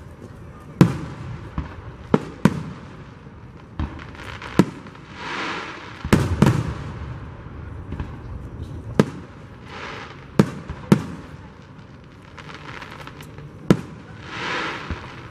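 Aerial fireworks shells bursting overhead: about a dozen sharp bangs at irregular intervals, some close together in pairs, with softer spells of hiss lasting about a second between them.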